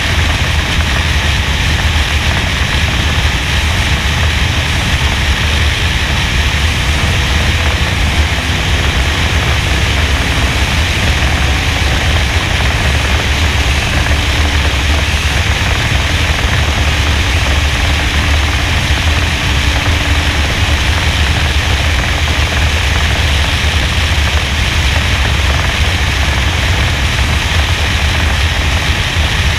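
NASCAR stock car's V8 at speed, picked up by a roof-mounted GoPro: a loud, steady rush of wind buffeting the camera over a muffled engine drone. The engine note barely changes, so lifting and getting back on the gas through the corners can hardly be heard.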